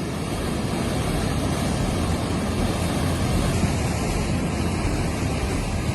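Floodwater rushing through streets, a loud, steady rushing noise without pause.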